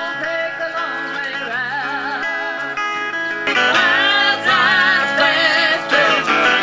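Music from a small band: guitar with singing, the voice wavering on held notes, getting louder about three and a half seconds in.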